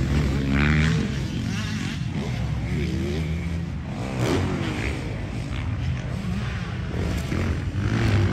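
125 cc motocross bike engine revving hard, its pitch climbing and falling back several times over a steady low drone.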